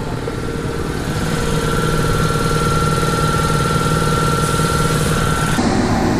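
Motor of a hydraulic tyre-changing machine running steadily with a high whine, getting a little louder about a second in; the whine cuts off about five and a half seconds in, leaving a lower rumble.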